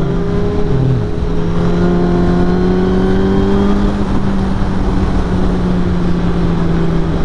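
Motorcycle engine running at a steady pitch while riding, with heavy wind noise on the microphone.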